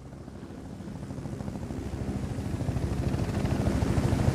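Helicopter rotor beating rapidly and evenly over a low engine hum, growing steadily louder.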